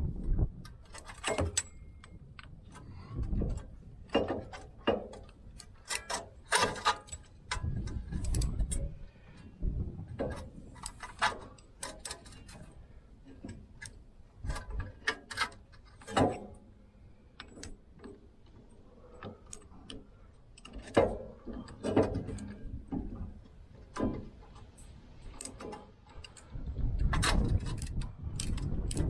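Metal hand tools and brake parts clinking and knocking: irregular sharp clicks and taps with pauses between them, and a low rumble near the end.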